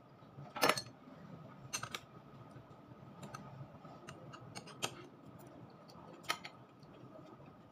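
Eating sounds close to the microphone: chewing and mouth smacks, with about six sharp clicks and crunches, the loudest about a second in, over a faint steady hum.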